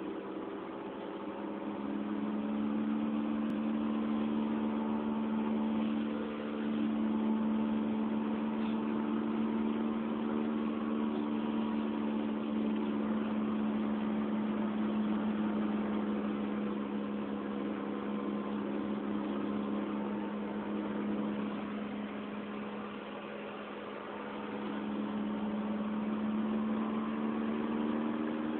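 Worn rear wheel hub bearing on a 2004 Honda Fit GD3 1.5W giving a low, steady drone while the car is driven, over road noise inside the cabin. The hum swells a couple of seconds in and eases off for a while past the middle; the bearing began making the noise at about 50,000 km.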